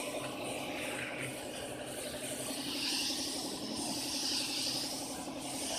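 Compressed-air hiss of a gravity-feed paint spray gun spraying paint onto a car bumper, growing stronger about halfway through, over a steady machine hum.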